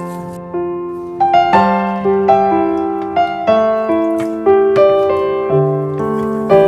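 Background music: a piano tune, single notes struck about two a second, each dying away.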